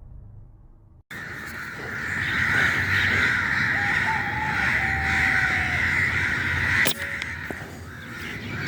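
A flock of crows cawing continuously, many calls overlapping, starting abruptly about a second in. A single sharp click comes near seven seconds.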